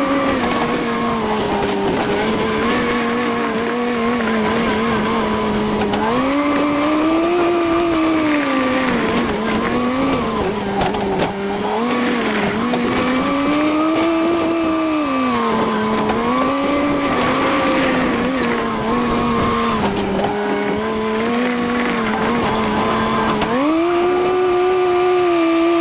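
Tractor engine running steadily under varying load while baling straw, its pitch climbing and falling back every few seconds.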